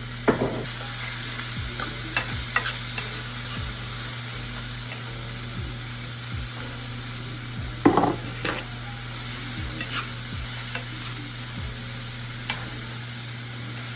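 Chicken frying in oil in a pan, sizzling steadily, while a utensil stirs it and knocks against the pan a handful of times, loudest just after the start and about eight seconds in.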